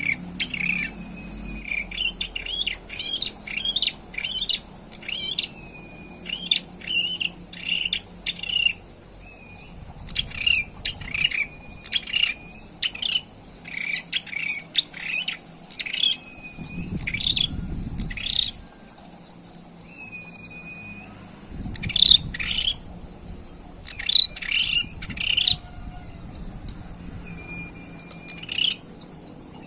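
Ashy tailorbird (prenjak kepala merah) singing: rapid bursts of sharp chirps, broken now and then by a single drawn-out whistle note, from a young bird still learning its song. A low rumble sounds twice in the background.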